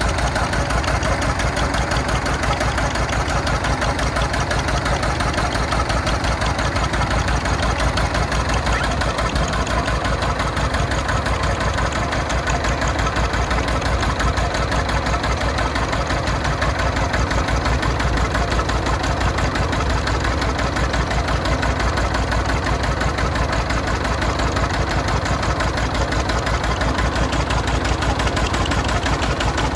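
Lister JP2 twin-cylinder diesel engine running steadily, with an even, rapid beat of firing pulses.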